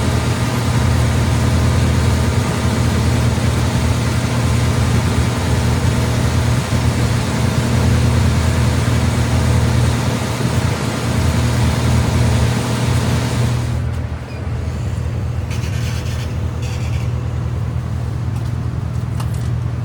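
Lorry on the move: a steady low engine drone with road and tyre hiss over it. About two-thirds of the way through, the hiss drops away and the sound turns duller.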